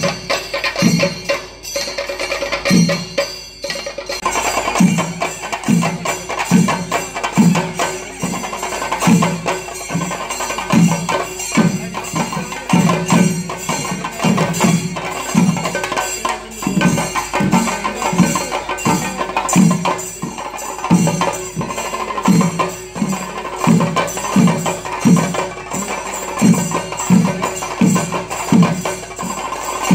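Kerala temple percussion accompanying a thira dance: chenda drums beating a steady heavy rhythm of about one and a half strokes a second, with a dense patter of lighter strokes and metallic clashing from elathalam hand cymbals over it.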